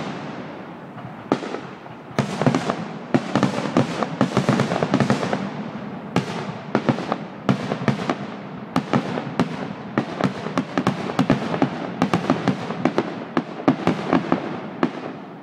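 Aerial fireworks shells bursting in the rapid barrage of a grand finale, many sharp bangs following close on one another. There is a short lull in the first second before the bangs resume, and they stop just before the end.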